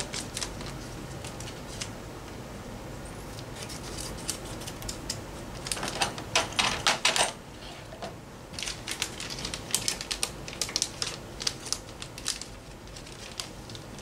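Plastic packaging crackling and clicking as a replacement laptop hard drive cable is unwrapped, in bursts, the densest about six to seven seconds in and again from about nine to eleven seconds.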